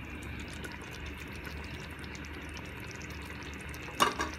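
Potato curry sizzling in a cooking pot on the stove, a steady fine crackle of hot oil and gravy. About four seconds in there is a short, loud clatter.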